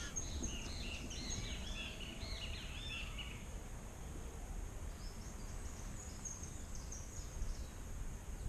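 Small songbirds singing: a quick jumble of chirping notes for about three seconds, then after a short gap a thinner, higher twittering, over a steady low background rumble.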